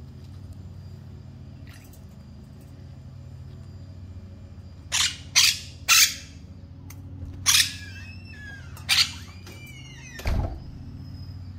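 Monk parakeet splashing in a shallow stainless-steel bowl of water: six short bursts of splashing and wing-fluttering from about five seconds in, the last with a low thump.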